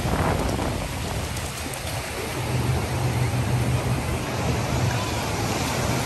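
Small lake waves breaking and washing up a sandy shore, a steady rushing noise, with a low steady hum joining about two seconds in.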